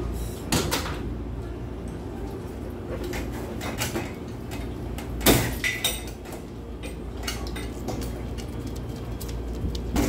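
White metal pet gate being pushed open by dogs: a series of clicks and rattling knocks, loudest about halfway through as the latch gives and the gate door swings, over a steady low hum.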